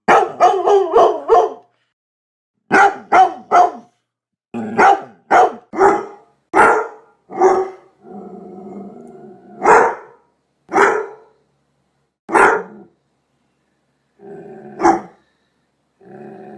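A dog barking deep and hard, first in rapid volleys of three to five barks, then in single barks a second or two apart, with low rumbling growls between the later barks.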